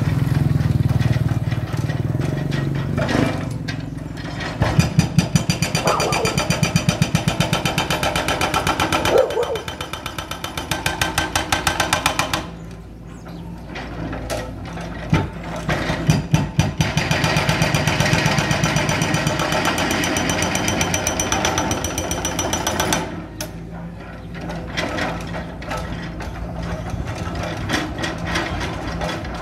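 Excavator-mounted hydraulic drill hammering into a concrete road in rapid, even strokes, in two long bouts with a pause between them and again near the end, over the steady running of the excavator's engine.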